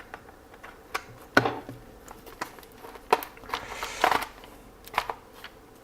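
Scattered clicks and taps of the Yongnuo YN685 speedlight's plastic housing parts being handled and fitted back together, with a brief rustle about four seconds in.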